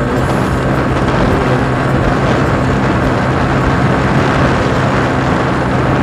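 Motorcycle engine running steadily at road speed, with wind rushing over the microphone.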